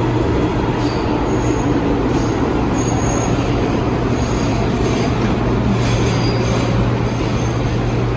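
New York City subway train running with a steady loud rumble and low hum, with brief high-pitched wheel squeals several times.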